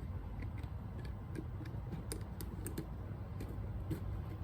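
Light, irregular clicks and ticks of thin steel piston ring rails being worked by hand into the grooves of a K24 piston, without a ring-expander tool. A low steady background rumble runs under them.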